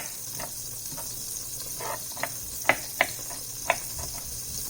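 A few irregular, sharp taps of a kitchen knife on a cutting board as garlic is chopped finer, the three loudest in the second half, over a steady high hiss of butter sizzling in a pan.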